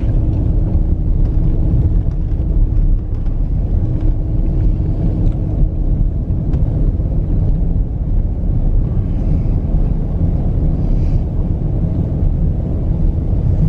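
Steady low rumble of a Dodge Durango R/T's Hemi V8 and its tyres running over a snowy, slushy road, heard from inside the cabin while driving.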